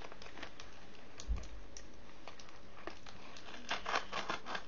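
A mail package being handled and opened: scattered small clicks and crinkles of the packaging. There is a soft thump about a second in, and the clicking grows busier near the end.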